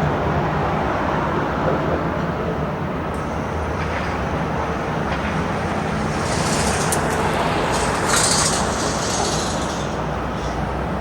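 Steady engine rumble of vehicles and heavy machinery on a large construction site, with a loud hiss for a few seconds past the middle.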